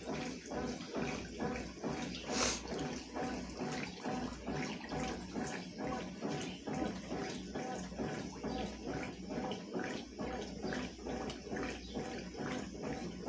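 Consul CWS 12 washing machine agitating a load, water sloshing in the tub in a steady rhythm of two to three surges a second, with one sharper splash about two and a half seconds in.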